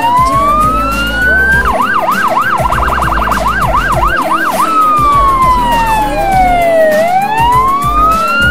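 American police car electronic siren cycling through its tones: a slow rising wail, then about three seconds of fast yelping that quickens in the middle, then a long falling wail that turns and rises again near the end.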